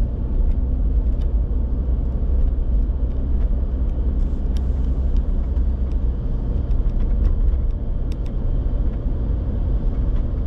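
Steady low rumble of a vehicle driving, engine and road noise heard from inside the cabin, with scattered light clicks and rattles.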